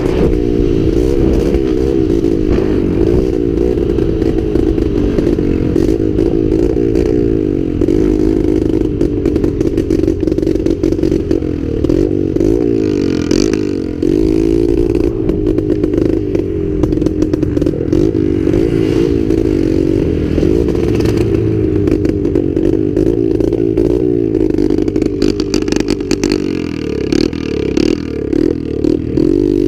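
Dirt bike engine running under way, its pitch rising and falling over and over as the throttle opens and closes.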